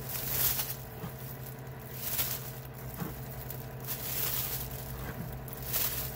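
A clear plastic bag crinkling and rustling as handfuls of chopped raw bacon are pushed into it, in about four spells roughly a second and a half apart, over a steady low hum.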